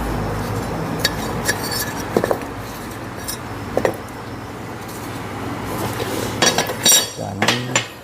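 Steel plates and brackets clinking and knocking against each other and a metal jig as they are handled, over a steady low hum. There are several sharp metallic clinks, with a denser, louder cluster near the end.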